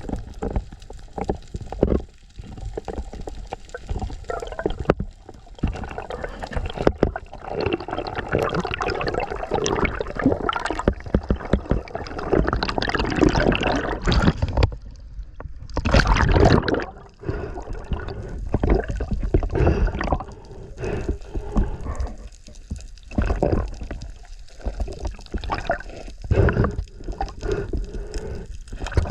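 Sea water gurgling and sloshing around the camera's microphone in irregular surges, loudest about sixteen seconds in.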